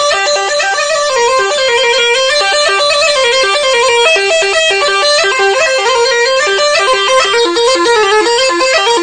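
Neyanban, the southern Iranian bagpipe, playing a bandari dance tune: one unbroken reedy melody that moves in quick, short notes.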